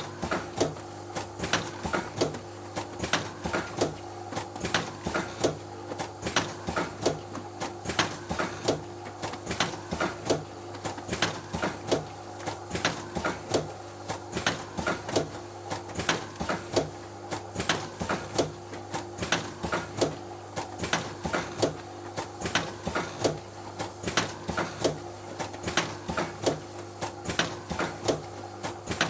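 Milk sachet filling and sealing machine running: a rapid, steady run of mechanical clacks, several a second, over a constant motor hum.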